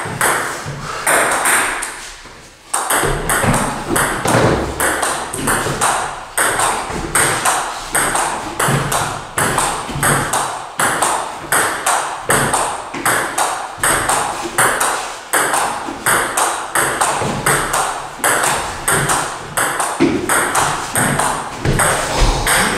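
Table tennis ball struck back and forth between bats and bouncing on a Joola table: a steady run of sharp ticks, about two to three a second, with a brief lull about two seconds in.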